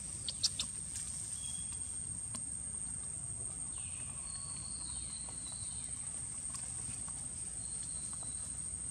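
Outdoor ambience dominated by a steady high-pitched insect drone over low rumbling background noise, with a few sharp clicks in the first second.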